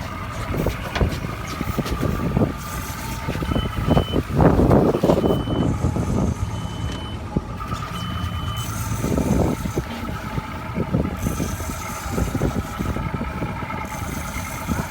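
Boat engine running steadily, with four short high beeps about a second and a half apart a few seconds in.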